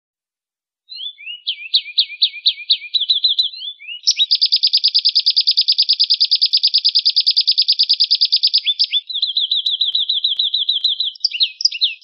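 Canary singing rolling trills: starting about a second in with a few shorter phrases, then a long, fast trill of about a dozen notes a second lasting nearly five seconds, followed by further trills near the end.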